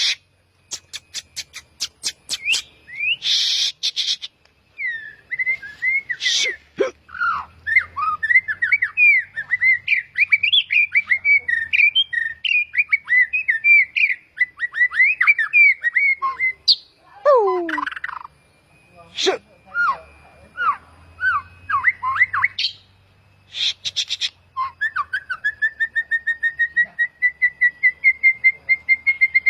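A bird singing a fast, varied warble of chirps and whistled glides, broken by a few short harsh calls. Near the end it goes into a long trill of rapid repeated notes, slowly rising in pitch.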